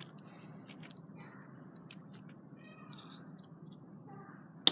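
Faint handling noises from gluing paper: small scattered clicks and rustles of paper and a glue bottle, over a low steady hum, ending in one sharp click.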